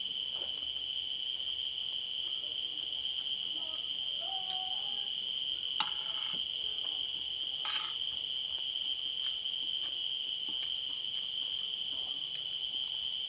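Crickets trilling in one steady, unbroken high-pitched chorus, with two brief clinks of a spoon on a plate about six and eight seconds in.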